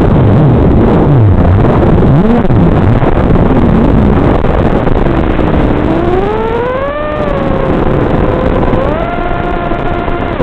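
Racing quadcopter's motors and propellers over steady rushing wind noise. The motor whine swoops down and up with the throttle, rises about six to seven seconds in, and steps higher again near the end as the quad climbs under full power.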